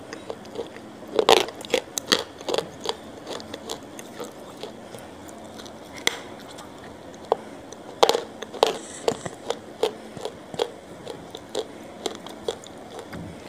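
A person eating close to the microphone: chewing with wet mouth clicks and lip smacks, coming in clusters about a second in and again about eight seconds in.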